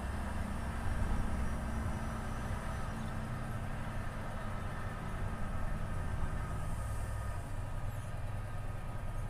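Volvo FH 500 truck's 13-litre straight-six diesel running on the move, a steady low engine hum whose note changes about six seconds in.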